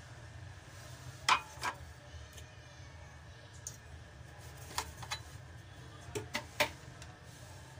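Scattered short, sharp clicks and taps in a kitchen, about nine of them, the loudest about a second in, over a low steady hum.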